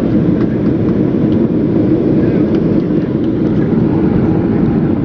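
Jet airliner cabin noise: a steady, loud rumble of engines and airflow heard from inside the passenger cabin around landing.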